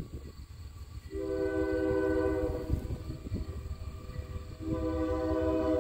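Approaching train's locomotive sounding a chime horn: a blast of about a second and a half, a pause of about two seconds, then a second blast that is still going at the end. A low rumble from the train runs underneath.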